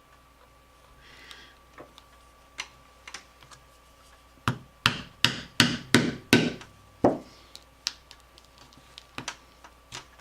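A punch struck repeatedly with a mallet, driving small stitching holes through a leather strap: a few light taps, then a run of about seven sharp, loud strikes at roughly three a second in the middle, then more scattered light taps.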